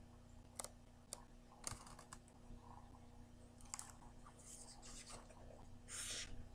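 Near silence with a few faint, scattered clicks and a brief soft rustle of a picture book's page being turned near the end.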